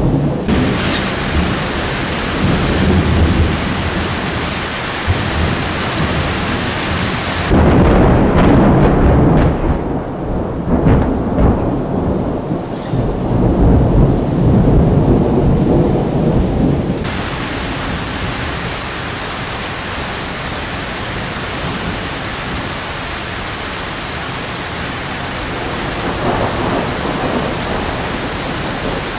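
Thunderstorm: steady heavy rain with a long, deep rolling thunderclap that is loudest from about eight seconds in until about seventeen seconds, then rain alone.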